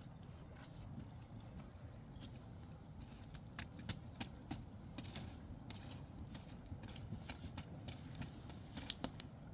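Irregular sharp clicks and taps, a few a second and more frequent in the middle, over a low steady rushing background.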